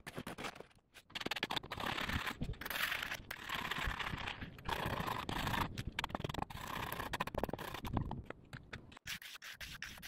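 Repeated scraping of wet concrete, starting about a second in: a wooden board and steel trowel drawn across a freshly poured concrete footer in a wooden form to level and smooth it.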